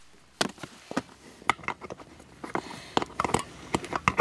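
Scattered short plastic clicks and taps as the bellows pump's hose connector is taken off a Savage Gear Highrider inflatable kayak's air valve and the valve is closed.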